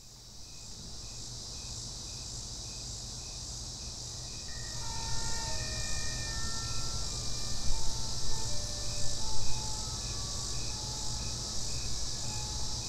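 Insect chorus, cricket-like: a steady high hiss with a short chirp about three times a second, fading in. From about four and a half seconds in, scattered clear held notes at different pitches join it, over a low hum.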